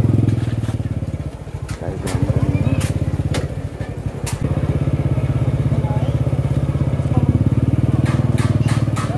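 Motorcycle engine running close by, its level dipping briefly about a second and a half in and again at about four seconds before picking back up. A few sharp clicks and rattles sound over it, several of them close together near the end.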